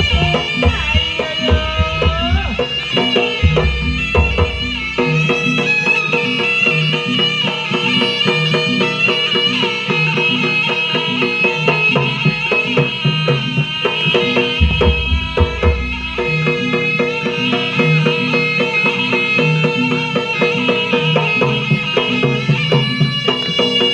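Jaranan music: a shrill reed pipe plays a wavering melody over steady gamelan and drum rhythms, with deep low strokes near the start, about 15 s in and at the end.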